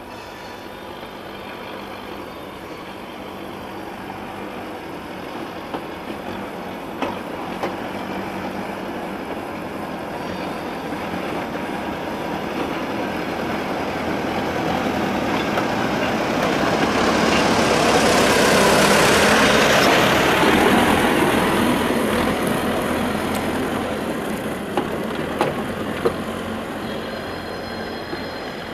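ČKD T448p diesel shunting locomotive working slowly toward the listener, hauling loaded open freight wagons; the engine and wagon noise grow louder to a peak about two-thirds of the way through, then ease. A few sharp clanks from the wheels and wagons cut through now and then.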